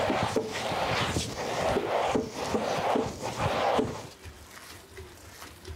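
Soaked rice being ground wet in a hand-turned stone grinder, the cylindrical stone crunching and squishing the grains against the stone basin. The strokes are rhythmic, about two or three a second, and fade out about four seconds in.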